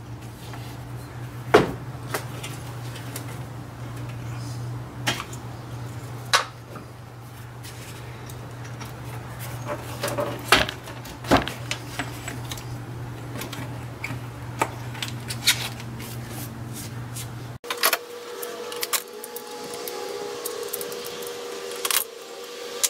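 Scattered clicks, knocks and rubbing as a rubber upper radiator hose and its clamp are worked onto their fittings by hand, over a steady low hum. About three-quarters of the way through the hum cuts out and a faint steady tone takes its place.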